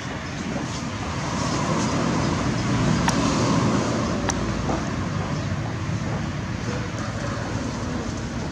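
A road vehicle passing by, its noise swelling to a peak about three seconds in and then slowly fading, with a couple of sharp clicks.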